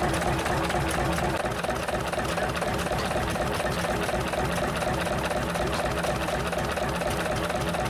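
Fairbanks Morse Model 36A 20 hp two-cylinder diesel engine running steadily with an even rhythm.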